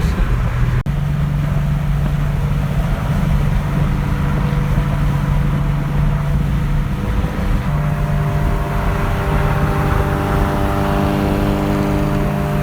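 Car engine drone and road noise heard from inside the cabin while driving at steady speed. The engine note gains a fuller set of upper tones about eight seconds in.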